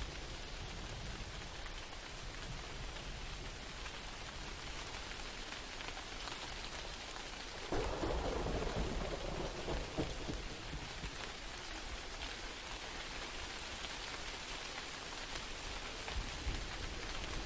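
Rain falling steadily. About eight seconds in, a rumble of thunder sets in suddenly and fades over about three seconds.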